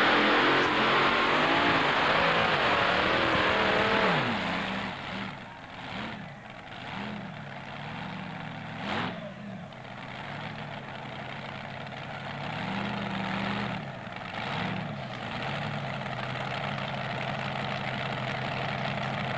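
Modified pulling tractor's engine at full throttle under load for about four seconds, its pitch wavering. After a sudden drop, an engine is revved up and down in several short blips and then settles to a steady idle.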